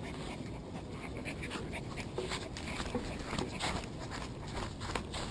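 Pembroke Welsh Corgi puppy panting close to the microphone, with irregular short rustles and bumps as it noses around.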